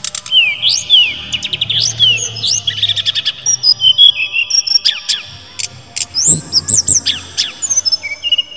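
A caged sikatan rimba dada coklat (jungle flycatcher) singing. Its song is a fast, varied run of clear whistled notes, sharp rising and falling slurs and quick trills.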